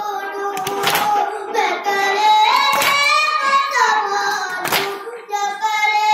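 A boy's voice singing a Muharram noha lament, with held, gliding notes. Men's hands strike their chests together in matam, three strikes about two seconds apart, in time with the recitation.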